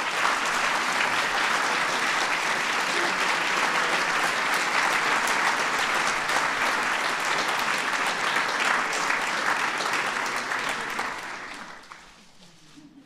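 An audience applauding steadily with many hands clapping, dying away about a second before the end.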